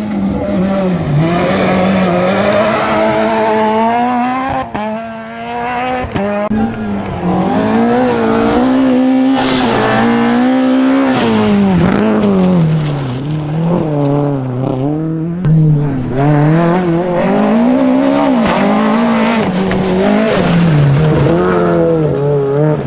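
Rally car engine at full attack, revving hard, its note repeatedly climbing and dropping sharply with gear changes and lifts.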